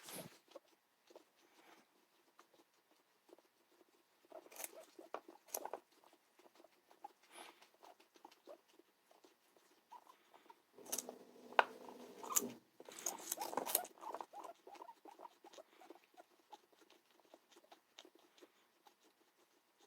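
Small pets crunching and gnawing on carrot pieces: faint irregular crisp clicks, busier in two bouts, the second about halfway through.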